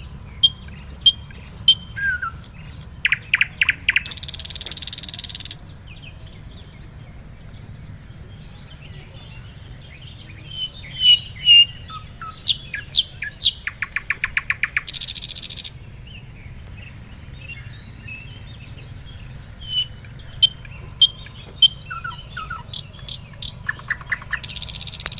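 Songbirds singing: sharp chirps and whistled notes, a rapid trill, and a harsh buzzy rasp about four seconds in, again midway and near the end. The same phrase sequence comes round about every ten seconds.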